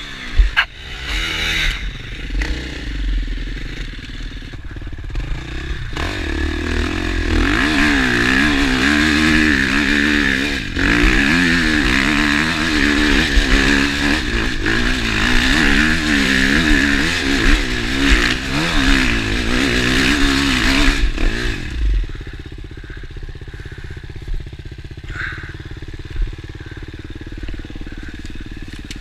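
A new KTM EXC enduro motorcycle being ridden off-road while it is run in. The engine revs rise and fall again and again through a long loud stretch, with a few knocks and clatter from the bike over rough ground. Near the end it drops to a lower, quieter run.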